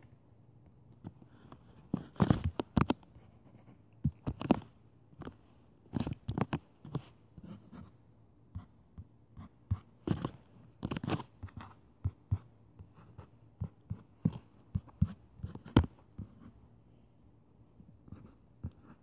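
Handwriting on a touchscreen: irregular taps and short scratchy strokes of the tip against the glass as letters are drawn, coming in clusters with short pauses between words.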